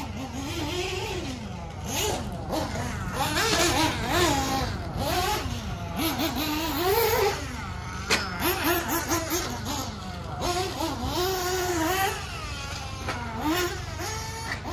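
Small high-revving engine of a 1/8-scale nitro RC buggy, the HB Racing D819RS, driven around a dirt track. Its pitch climbs and drops again every second or so as the throttle is opened and closed through the corners and jumps.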